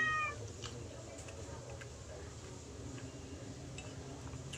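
A domestic cat's meow trailing off right at the start, followed by faint, scattered small clicks of eating over a low steady hum.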